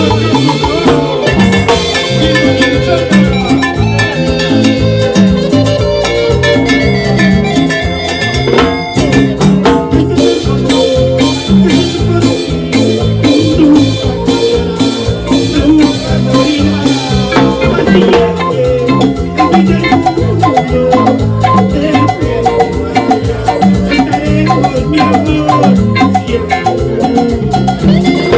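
A band playing Latin dance music, salsa-like, with a steady, driving percussion beat and a pulsing bass line.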